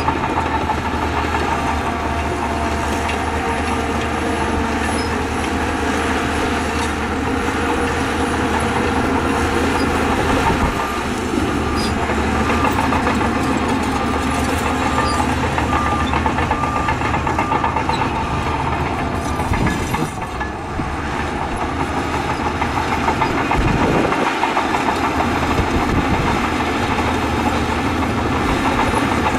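Diesel engines of heavy earthmoving machinery running steadily and loud, with a brief drop in level about two-thirds of the way through.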